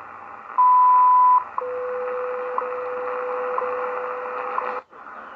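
A shortwave time-signal broadcast on 15 MHz, in WWV's format, heard through the Tecsun PL-330's speaker over static hiss. It opens with a loud, high 1 kHz minute tone lasting under a second, then a steady lower 500 Hz tone with a short tick every second. The signal cuts off abruptly near the end as the radio's scan steps to the next frequency.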